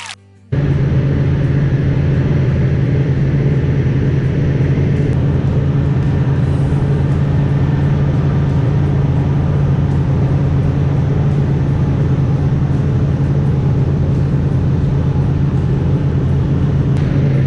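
Fishing boat's engine running steadily under way, a loud, even drone with a low hum. It starts abruptly about half a second in.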